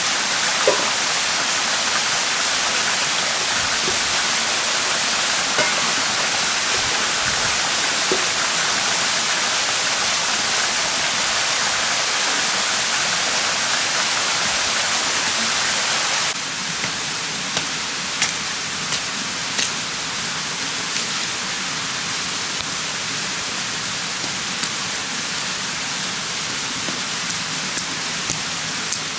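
Running water of a mountain stream, a steady rush. About halfway through it drops to a lower level, and sharp knocks follow every second or so as a blade chops sticks.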